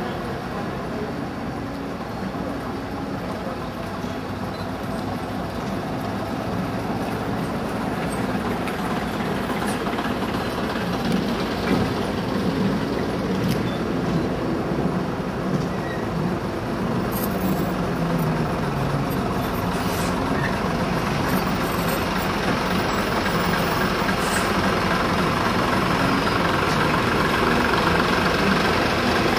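Diesel engines of vintage AEC buses running as they pull round a mini-roundabout and pass one after another, first single-deckers, then a Routemaster double-decker coming closer and growing louder near the end, with car traffic mixed in.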